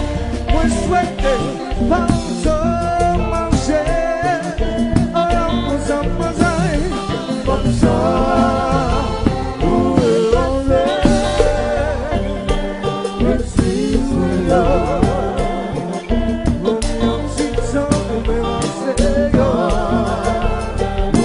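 Live konpa band playing with lead vocals, drum kit and keyboards: a sung melody with vibrato over a steady, full band groove.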